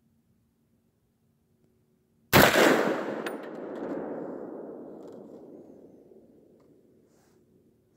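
A single AR-10 rifle shot about two seconds in, followed by a long echo that dies away over about five seconds.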